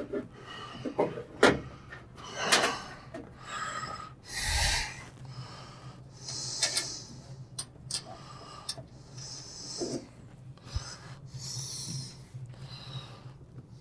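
Hands handling a bolt fed up through a wooden block and a washer's metal base: scattered rubs, scrapes and light knocks of metal and wood, over a steady low hum.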